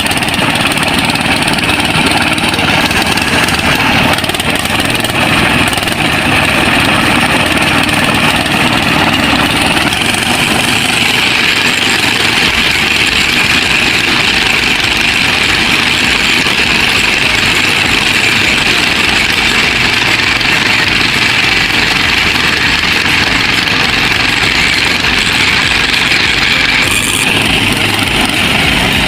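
An engine running steadily at idle, with a continuous hiss over it.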